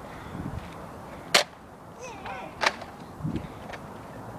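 Nerf foam-dart blasters firing: sharp pops, one loud shot about a second and a half in and another near the three-second mark, with a few fainter clicks.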